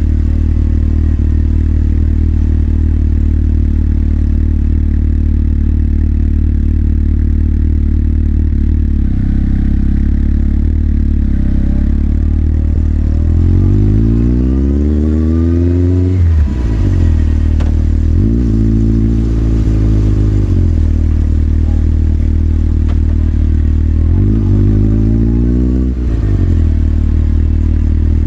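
Motorcycle engine heard from the rider's seat, running steadily at first, then pulling away with its pitch climbing and breaking sharply at a gear change. It eases up and down once, then climbs again to another shift near the end.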